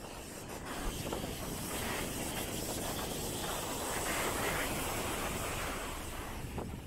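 Sea waves washing onto a sandy beach, the rush of surf swelling about a second in and easing off near the end, with wind buffeting the microphone.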